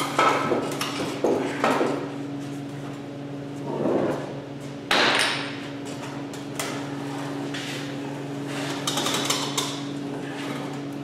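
Wooden boards knocking and thudding as a heavy bench top of old barn boards is shifted on wooden sawhorses: a few separate sharp knocks, the loudest about five seconds in with a short ring, and a quick run of clatters near the end. A steady low hum runs underneath.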